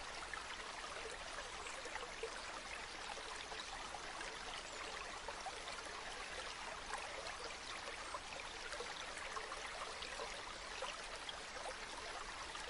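Bamboo water fountain trickling and splashing steadily into a pool, a continuous patter of fine droplets with no breaks.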